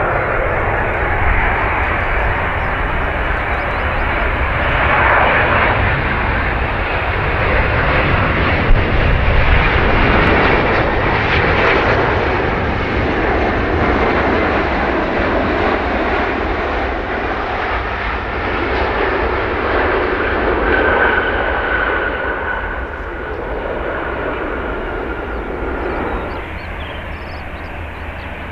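Jet airliner's engines passing close by. The noise swells to its loudest about ten to twelve seconds in, then fades away, with a faint high whine showing briefly past the twenty-second mark.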